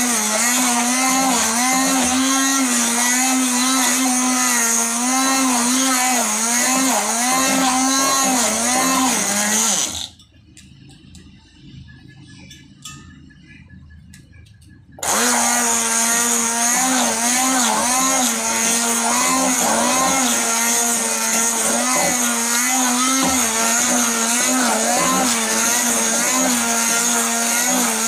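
Electric stick blender whipping cream in a steel bowl, its motor running steadily with a slightly wavering pitch. It stops about ten seconds in and starts again some five seconds later.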